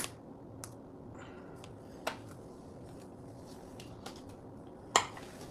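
Quiet room tone broken by about five short, sharp clicks and taps, the loudest near the end.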